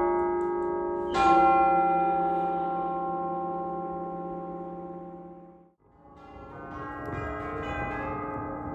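Christ Church's peal of eight tubular bells, dating from 1849, playing a tune. A note struck about a second in rings on and slowly dies away, and the sound fades almost to nothing. It then swells back with several more notes.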